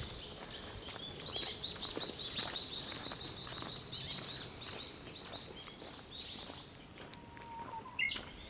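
A small bird singing a rapid series of high chirps, about five a second, for several seconds before trailing off, with another short call near the end.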